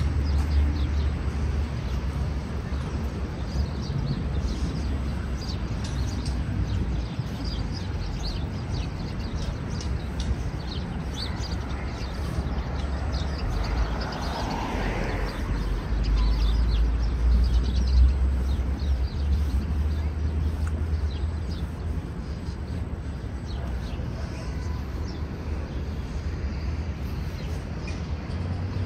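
City street ambience: a steady low traffic rumble that swells about two-thirds of the way through, with a brief whine that rises and falls about halfway through.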